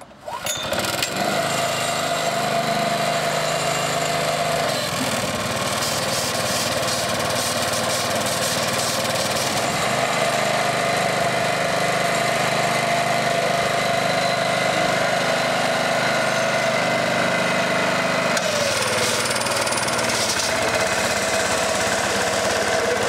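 Small engine on a BLOTTER water-removal machine, working as a mobile pump unit: it comes up to a loud, steady run within the first second and drives the pump that throws a long jet of water. Its pitch dips briefly a few seconds before the end.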